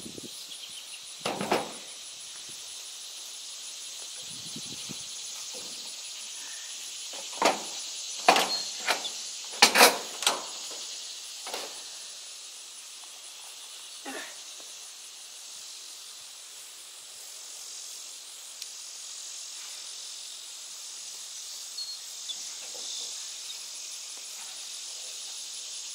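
Insects chirping steadily in the grass, with a cluster of sharp knocks and clatters about a third of the way in as the metal door panel and tools are handled.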